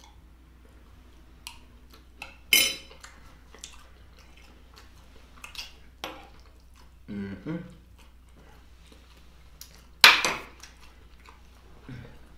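A metal eating utensil clinking and scraping against a glass dish in a scatter of short clicks, with two louder ringing strikes, about two and a half seconds and ten seconds in, as the last bites are scooped up.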